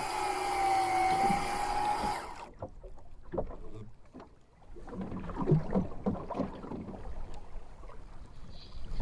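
A held musical tone cuts off abruptly about two seconds in. After it, water slaps against the hull of a small open fishing skiff in a light chop, with irregular knocks from the boat.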